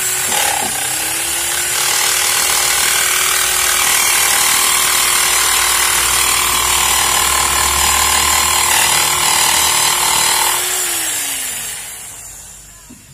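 Bosch electric jigsaw cutting across a wooden plank, its motor running loud and steady with the blade rattling through the wood; the pitch dips briefly just after the start. About eleven seconds in it is switched off and winds down, falling in pitch as it fades.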